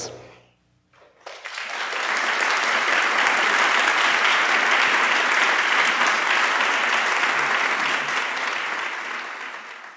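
Audience applauding. It swells in about a second and a half in, holds steady, and fades near the end.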